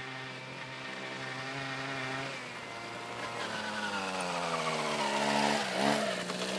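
Small engine of a stand-up motor scooter running as it comes closer, growing steadily louder. Its pitch drops a little over two seconds in and slides lower through the middle, then briefly dips and picks up again near the end as the scooter turns.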